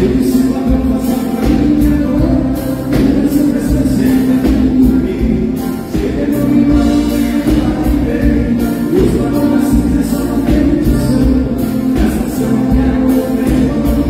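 Live band playing a xote: piano accordion carrying the melody over electric guitar and drum kit, with a voice singing.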